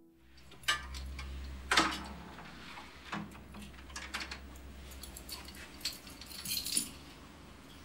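Keys jangling with sharp clicks and knocks of a door being handled and opened, the loudest knock about two seconds in and a jingle of keys near the end, over a low hum that fades out about five seconds in.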